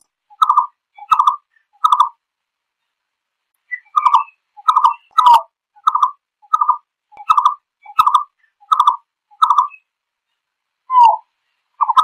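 Chestnut-breasted malkoha calling to its flock: a series of short notes, about one every two-thirds of a second, in runs broken by pauses of a couple of seconds.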